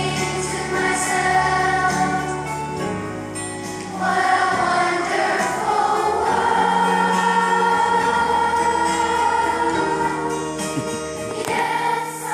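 Fifth-grade children's choir singing a song with musical accompaniment, holding one long note through the middle.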